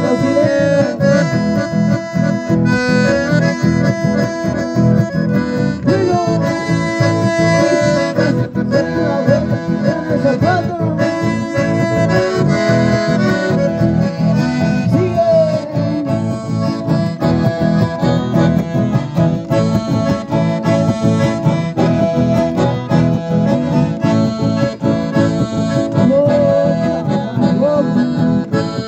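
Live dance music played on button accordions with guitar accompaniment, carrying on steadily and loud.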